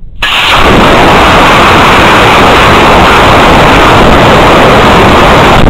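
Model rocket launch heard from its on-board camera: a C6-3 black-powder motor ignites suddenly a moment in, followed by a loud, steady rushing noise of the motor burn and air streaming past the camera as the rocket climbs.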